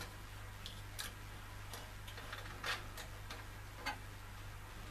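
Scattered light clicks and taps, about six at irregular spacing, from hands handling cables and coolant tubing inside a PC case, over a low steady hum. The sharpest click comes a little under three seconds in.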